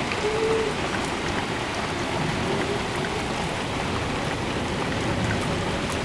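Heavy rain pouring down steadily, a dense even hiss of rain on the yard and deck. A distant outdoor tornado warning siren's wail comes through faintly now and then.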